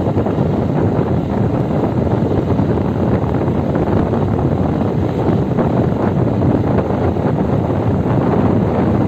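Steady wind rush on the microphone of a camera travelling along a road, over the rumble of the moving vehicle.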